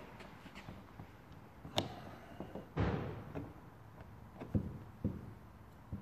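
A few sharp clicks and knocks of a plastic trim tool and hands working at a car's fuel-door housing, prying to release a hidden retaining clip. The loudest is a brief knock about three seconds in.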